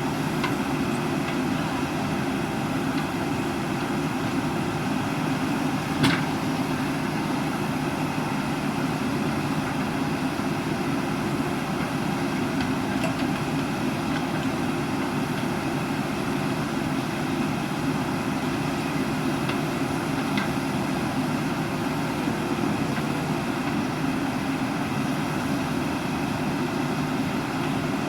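JCB backhoe loader's diesel engine running steadily, with one sharp knock about six seconds in.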